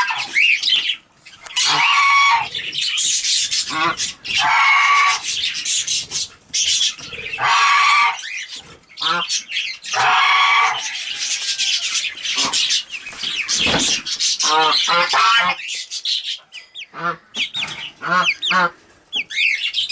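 Chickens squawking and clucking: loud harsh squawks every few seconds, then quicker runs of short clucking calls in the second half.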